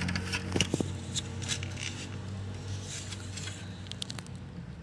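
Small clicks and scrapes of hands working a robot vacuum's plastic wheel assembly and its broken wheel spring, over a steady low hum.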